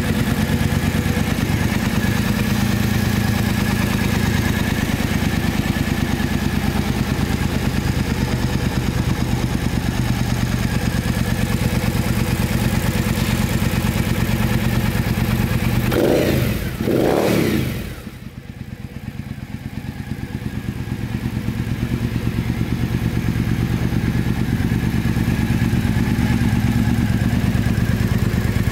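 Triumph Speedmaster 865's 865 cc parallel-twin idling steadily, with two quick throttle blips a little past the middle. After the blips the sound turns quieter and duller for a few seconds, then builds back to a steady idle.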